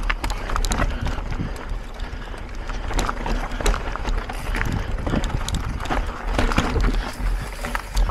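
Mountain bike ridden over rough trail: a steady low rumble of wind on the microphone, with the tyres and bike clattering in irregular knocks and rattles.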